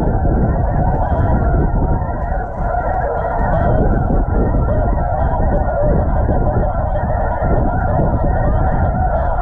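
Dense, continuous chorus of snow goose calls, many overlapping honks with no break.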